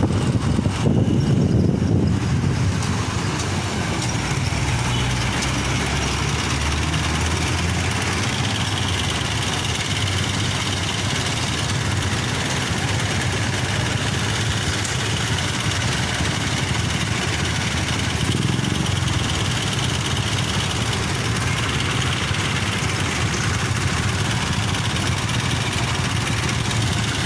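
Vehicle engines idling steadily in stopped street traffic: the motorcycle being ridden and the jeepneys queued just ahead of it. There is a louder rumble in the first two seconds, while the motorcycle is still moving.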